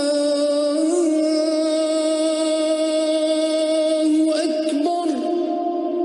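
A muezzin's voice holding one long, drawn-out note of the adhan, the call to prayer. The note is ornamented with a small wavering turn about a second in and steps to a new pitch near the end.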